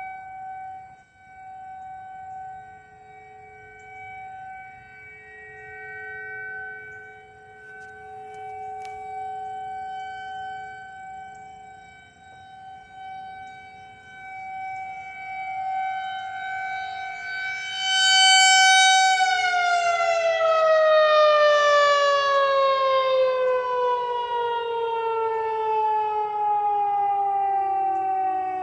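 Outdoor tornado warning sirens holding a steady wail that rises and falls in loudness. About two-thirds of the way through, the nearest siren gets loud and its pitch starts sliding steadily down as it winds down at the end of the test.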